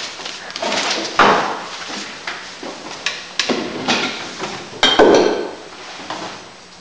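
A string of knocks and clatters of objects being handled, the loudest about a second in and about five seconds in, with a brief ringing clink just before the second one.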